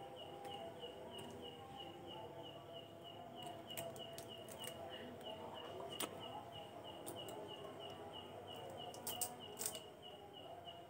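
Faint insect chirping, one even high chirp repeating about four times a second, with a few soft clicks and taps now and then.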